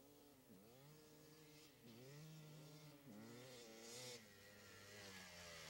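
Distant dirt bike engine, heard faintly. Its pitch climbs and then drops sharply several times as the rider works the throttle and gears, and it grows slowly louder as the bike comes closer.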